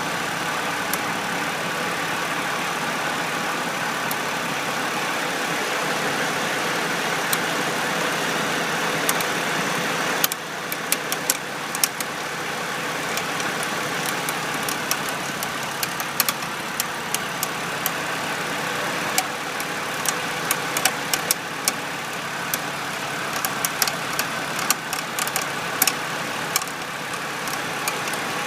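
BMW Z4 engine idling steadily, with irregular sharp ticks and clicks that come more often about a third of the way in. This is the abnormal noise that the owner traces to the alternator pulley.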